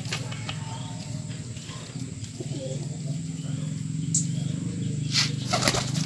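Domestic pigeon's wings flapping and fluttering while it is held, a few sharp flaps about four seconds in and near the end, over a steady low hum.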